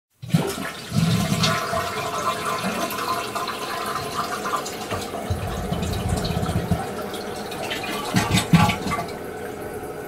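Toilet flushing: a sudden rush of water swirling and gurgling down the bowl, with louder gurgling surges about a second in and again around eight seconds, easing to a steadier running sound near the end.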